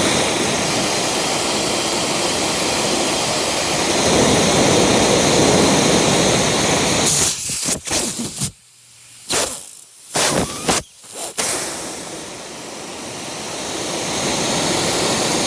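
Nitrogen hissing loudly and steadily out of a leak in the evaporator coil near an aluminum-to-copper joint. It is the leak that let the system lose its entire refrigerant charge. The hiss breaks off and returns several times around the middle, then settles back to a steady hiss.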